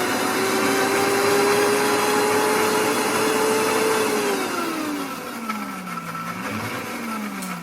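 Kitchen blender motor running at high speed as it blends the remedy ingredients, then winding down about four and a half seconds in, picking up briefly once more and slowing again near the end.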